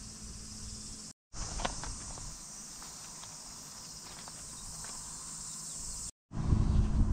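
Insects buzzing steadily in a high, even drone, with a few faint clicks and light steps on gravel. The sound cuts out briefly twice, and after the second break a louder low rumble with scattered clicks takes over.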